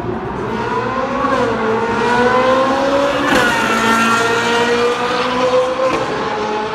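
Supercar engine accelerating hard, its pitch climbing, with a brief dip about a second in like a gear change. It then holds a high, steady note before dropping off near the end.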